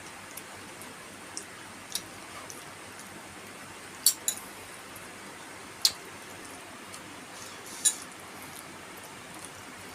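Metal utensils clinking against a dish as food is eaten, in short sharp clinks scattered a second or two apart, the loudest near the middle and end, over a steady hiss.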